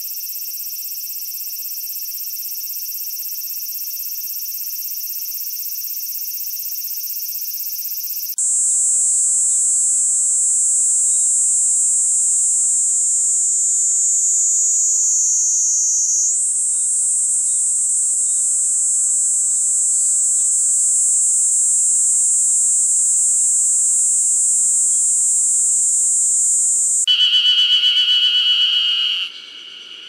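Japanese cicada songs, one species after another: a dense, high buzzing from a large cicada for about the first eight seconds, then a niiniizemi (Platypleura kaempferi) singing a steady, high-pitched buzz that wavers in pitch about halfway through. Near the end a different, louder pulsing cicada call starts and cuts off suddenly.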